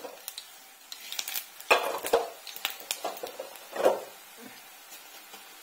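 Cumin seeds sizzling and crackling in hot oil in a kadhai, with a few sharp clatters about two seconds in and near four seconds. The sizzling dies down near the end.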